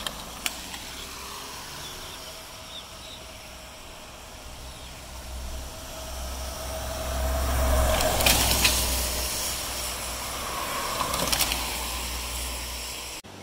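Strong wind gusting and buffeting the microphone, swelling to its strongest about eight seconds in and easing off, with a few sharp rattles near the peak and again about three seconds later.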